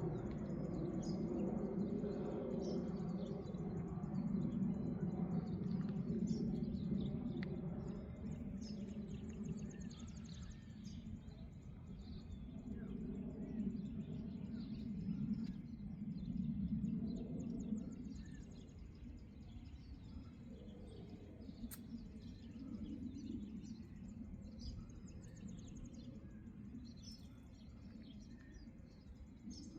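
Faint high bird chirps scattered over a steady low hum, the hum louder in the first half. One sharp click comes about three-quarters of the way through.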